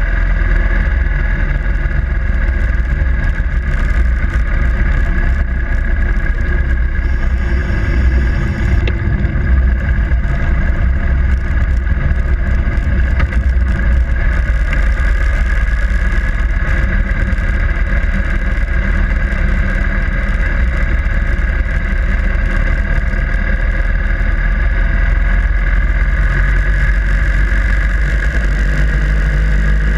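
Harley-Davidson Sportster Iron 883's air-cooled V-twin engine running steadily under way, with a strong low rumble.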